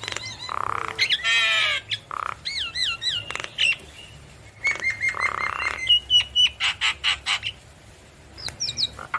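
Javan myna singing a varied song of wavering whistles and harsh rasping notes, with a fast rattling trill about a second in and a run of sharp clicks past the middle.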